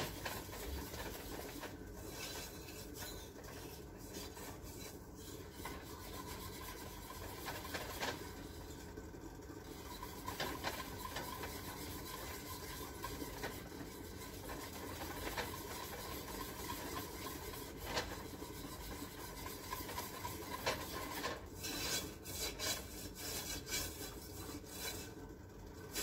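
Wire whisk stirring a cooking caramel icing mixture in a stainless steel saucepan: continuous scraping and rubbing of the wires against the pot, with a few brief sharper clinks.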